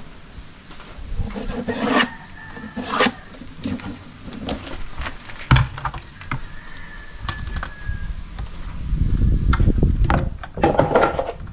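Plywood and wooden drawer parts being handled and set down: scattered knocks and scrapes of wood on wood, the sharpest knock about five and a half seconds in. Near the end comes a longer stretch of rubbing and scraping.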